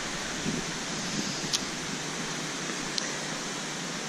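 Steady rushing of lingering hurricane wind, with no distinct pitch. Two brief high ticks come at about one and a half and three seconds in.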